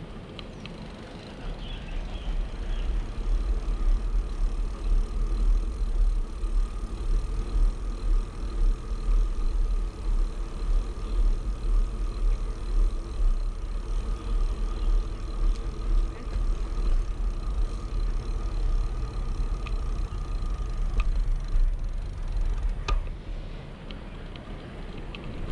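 Wind buffeting the microphone of a camera riding along on a moving bicycle: a gusting low rumble that starts about a second and a half in and eases near the end, with a couple of sharp clicks at the end.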